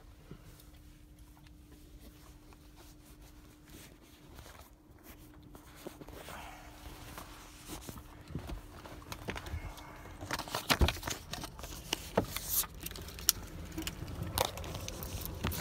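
Phone handling noise: rustling with sharp clicks and knocks as the phone rubs against clothing, getting louder about halfway through, over a faint steady hum.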